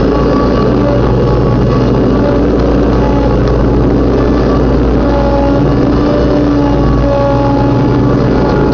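Riding lawnmower engine running steadily at mowing speed, loud and unbroken, with the blade deck cutting grass.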